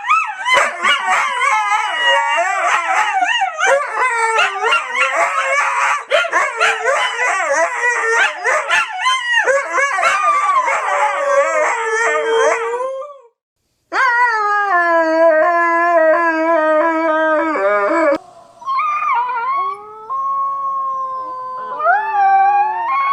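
Siberian husky howling. For the first half several wavering howls and yips overlap; after a brief break comes one long wavering howl, then a few shorter howls that rise and fall.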